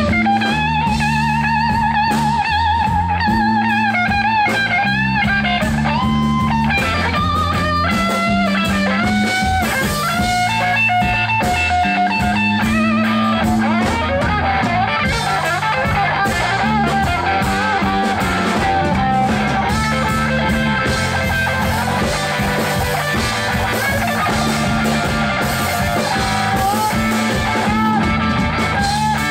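Live blues band in an instrumental break: an electric guitar plays a lead solo of held notes with vibrato over bass guitar and drum kit.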